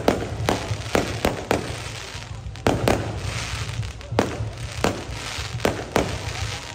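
Fireworks going off: about a dozen sharp bangs at irregular spacing, some close together, over a steady low rumble.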